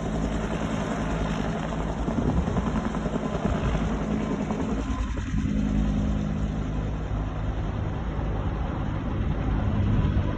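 Steady engine drone with a low, even hum and a wash of noise over it, holding level throughout.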